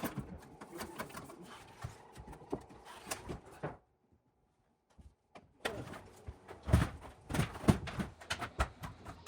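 Irregular clicks and knocks of hands-on work with plastic drain pipe and fittings, in two stretches split by about a second and a half of silence, with a cluster of heavier knocks near the end.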